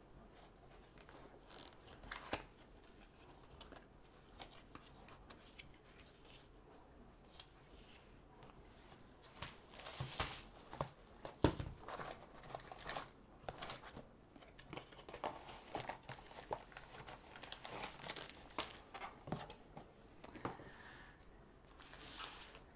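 Cardboard kit box opened by hand, with plastic packaging crinkling and rustling and light knocks as items are slid out and set down. Quiet handling for the first several seconds, busier from about ten seconds in, with one sharp knock.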